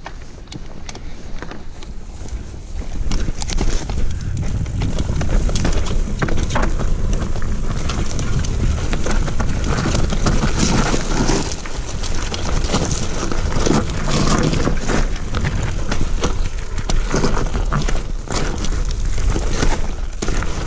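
Electric enduro mountain bike descending a loose, rocky trail: wind buffeting the microphone, tyres crunching over stones, and the bike's chain and frame rattling with frequent sharp knocks. The noise builds about three seconds in as the bike picks up speed.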